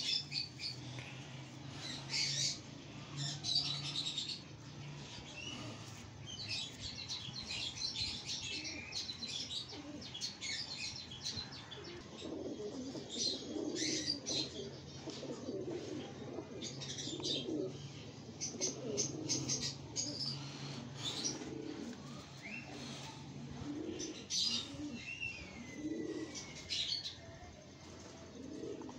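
Domestic pigeons cooing, mostly from about halfway through, with wing flaps and high chirping calls scattered throughout.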